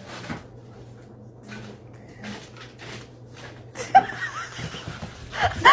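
Soft rustling and knocks as a cat noses at and tangles with a plastic bag on a wooden floor, over a faint steady hum. Louder rustling and a voice break in about four seconds in and again near the end.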